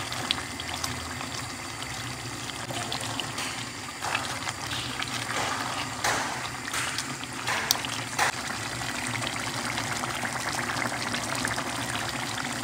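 Pot of egusi soup simmering on a gas hob, a steady bubbling hiss, while a spatula stirs through it and clicks against the pan a few times.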